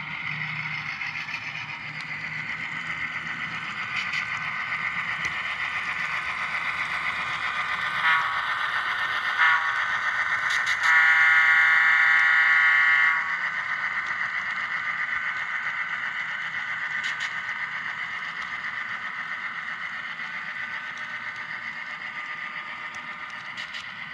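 Sound-decoder diesel switcher engine sound from an HO scale SW7 cow-and-calf model, played through the locomotive's small speaker, running steadily as the train passes. Two short horn blasts, then a long horn blast of about two seconds; the engine sound then slowly fades as the freight cars roll by.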